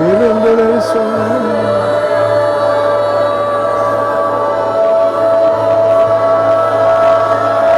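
Slow worship music of long held notes, with a singing voice sliding up and holding notes over it for the first two seconds.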